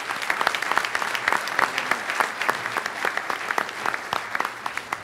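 Audience applauding steadily, a dense patter of many hands clapping, welcoming a speaker to the podium.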